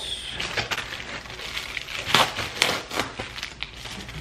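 Plastic Amazon Prime mailer bag crinkling and crackling as it is handled and pulled open by hand, in irregular rustles with a few louder crackles about two to three seconds in.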